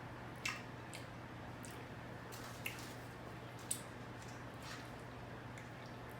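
Soft, wet chewing and mouth sounds of a person eating macaroni and cheese, with a few small clicks scattered through, over a faint steady low hum.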